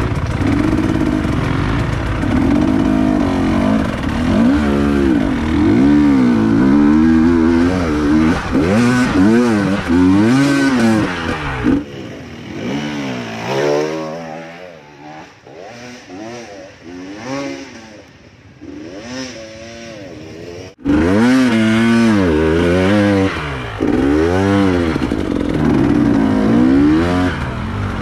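Trail motorcycle engine revving up and down over and over, the pitch rising and falling every second or so. About halfway through it turns quieter and thinner for several seconds, then comes back loud suddenly.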